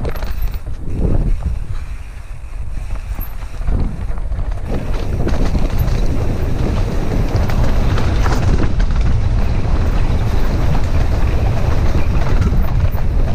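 Wind buffeting a ride-mounted camera microphone, mixed with the rumble and rattle of bike tyres on a rough dirt trail during a fast descent. It drops for a couple of seconds near the start, then runs steadier and louder.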